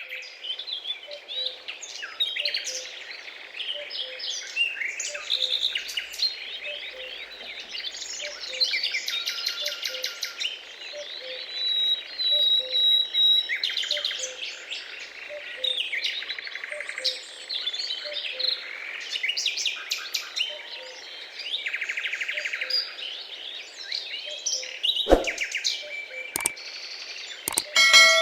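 A chorus of several birds chirping, trilling and whistling over one another, with a faint, even pipping about twice a second underneath. A couple of sharp clicks come near the end.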